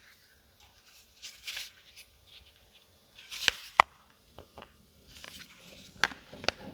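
Handling noise from unboxing a smartphone: short rustles of packaging and several sharp clicks or taps, two loud ones about halfway through and two more near the end.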